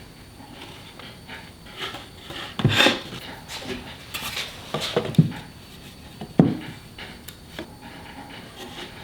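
Pieces of plywood being handled on a workbench: scraping and rubbing with a few sharp wooden knocks as parts are set down or fitted together, the loudest about three seconds in and again after about six seconds.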